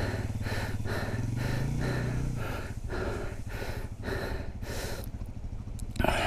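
Rider breathing hard into the helmet microphone, about three breaths a second, over a motorcycle engine idling, with a sharp louder gasp near the end.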